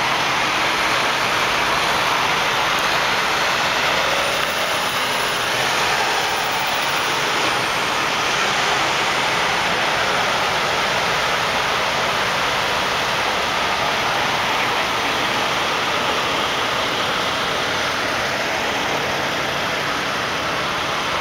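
Steady city street traffic noise, vehicles and trucks running, with a faint high whistle between about four and eight seconds in.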